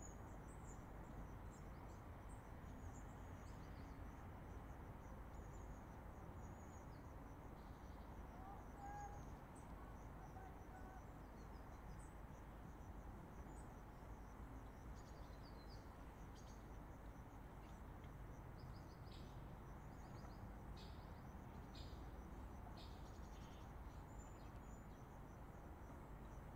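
Faint, steady rumble of distant highway traffic, with scattered high chirping of small birds and insects over it and a few short, lower bird notes about a third of the way in.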